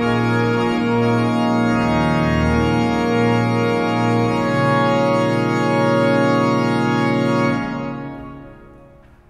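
Church pipe organ playing sustained full chords over a bass line that moves in the first half. The final chord is released about seven and a half seconds in and dies away in the church's reverberation.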